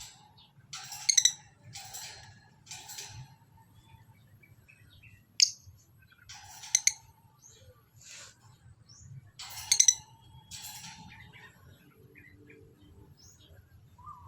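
A small rescued bird chirping in short, irregular calls every second or so, a few of them sharper and louder.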